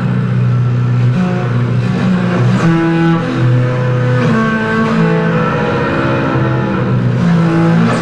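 Slow instrumental bass music: long held low bass notes with higher sustained notes layered over them, the pitches changing every second or so.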